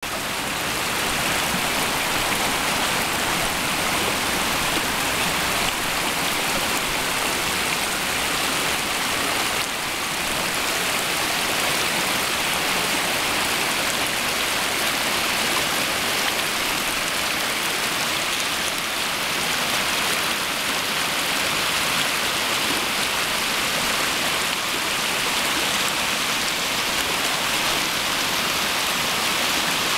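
Mountain creek rushing over slickrock, the water sliding and splashing down a rock chute in a steady hiss.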